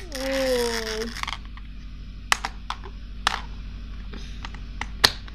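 Mini Beyblade spinning top in a plastic toy stadium: a loud whirring scrape with a falling pitch for about the first second, then a few sharp plastic clicks as the top is handled and fitted back into its launcher.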